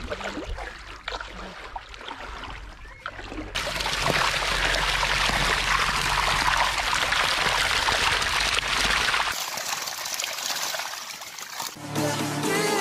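Water splashing as a seine net is hauled through a shallow fish pond, then fish crowded in the net thrashing, making loud continuous splashing from about three and a half seconds in until about nine seconds, after which it dies down.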